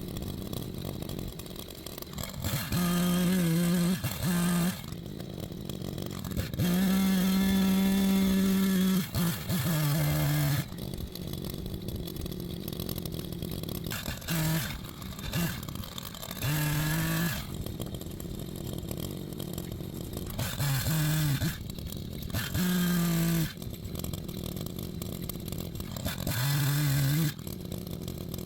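Echo Timberwolf CS-590 two-stroke chainsaw cutting through maple logs in repeated bursts: the engine revs up to full throttle for a second or two at a time, several times, and drops back to idle between cuts.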